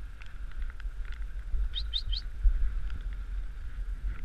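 Dog sled gliding over packed snow: a steady low rumble from the runners, with three quick high chirps about halfway through.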